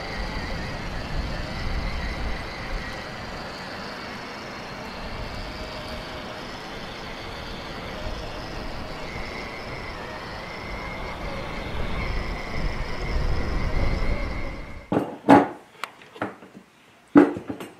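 Battery-powered Ferrari LaFerrari ride-on toy car driving over dirt: a faint steady electric-motor whine over a low rumble. About fifteen seconds in this gives way to a few sharp plastic knocks and clicks of a toy-car wheel being handled.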